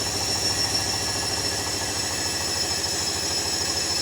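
Hoover washing machine spinning a load of bedding: a steady high motor whine over a fast, even low pulsing from the turning drum.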